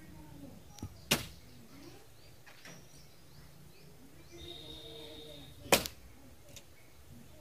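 Two sharp chopping strokes on wood, about four and a half seconds apart: firewood being cut by hand with a blade.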